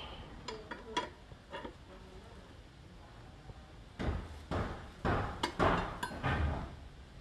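A long metal tool scrapes, clicks and rattles against the plastic folding mechanism of a Chevrolet Captiva side mirror being repaired because it is too weak to stay open. There are a few light clicks in the first two seconds, then a burst of louder scraping and rattling from about four seconds in.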